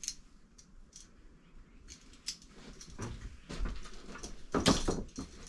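Scattered small clicks and snips of electrical wire being cut back and handled for wiring a new outlet, with a louder scraping burst a little before the end.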